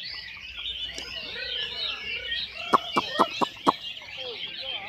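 Many caged songbirds singing together in a dense, continuous twittering chorus, with a run of about five loud, sharp notes about three seconds in.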